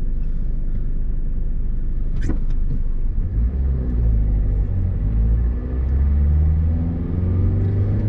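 Van engine and road rumble heard from inside the cabin as the van drives off and speeds up. The engine note rises from about three seconds in, dips briefly near the middle, then climbs again. There is a single short click about two seconds in.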